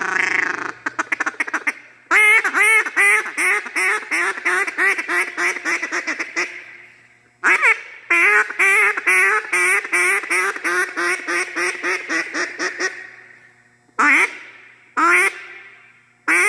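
Buck Gardner Spitfire duck call blown by mouth in duck quacks: two long runs of rapid quacks, about five or six a second, each trailing off, then three single quacks near the end.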